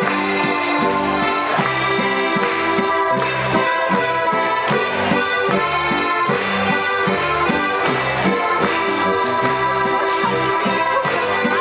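A group of button accordions playing a lively traditional folk tune together, over a steady, evenly repeating bass-and-chord beat.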